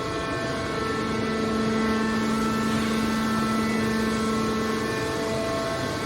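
Hydraulic scrap metal baler running: a steady machine hum with a constant whine in several tones over a noisy rush, as from its hydraulic pump and motor.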